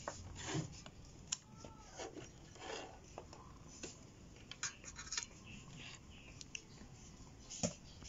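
Faint scattered clicks, taps and rustles of a digital multimeter's dial and test leads being handled, with the probes set on a microwave magnetron's terminals near the end.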